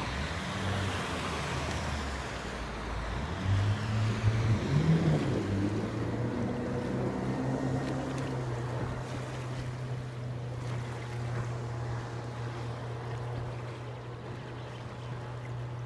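Boat motor running over the wash of water and wind. It rises briefly a few seconds in, then settles into a steady low hum.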